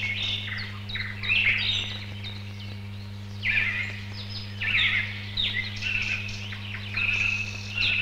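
Songbirds singing: short chirping and trilling phrases, one after another. A steady low hum runs underneath.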